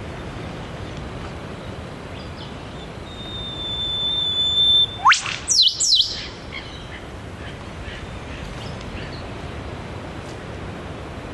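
Eastern whipbird pair duetting. About three seconds in, the male holds a long steady high whistle for about two seconds and ends it in his whip-crack, a sharp upward snap. The female answers at once with two quick falling notes.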